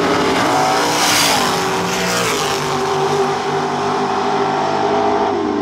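Drag racing car engine launching and accelerating hard down the strip, loud and at high revs, its pitch dropping a few times at gear changes.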